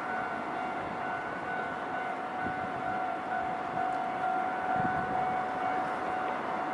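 Japanese railway level-crossing warning signal sounding a steady tone, over the rumbling noise of rail traffic.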